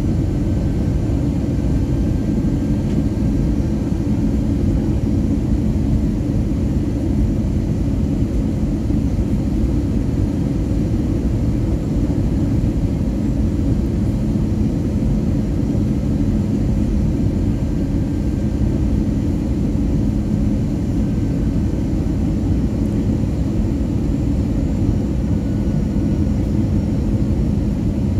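Airbus A320 cabin noise heard by the wing: the jet engines' steady rumble and rushing airflow, with a low steady hum running under it.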